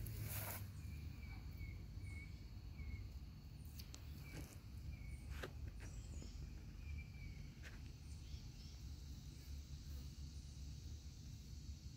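Outdoor ambience: a steady low rumble, with a small bird chirping short notes now and then and a few faint clicks or rustles.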